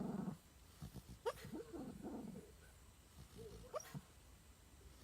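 A dog dreaming in its sleep. A low growl stops just after the start, then come soft muffled woofs and whimpers, with two short rising yips, one about a second in and one near four seconds.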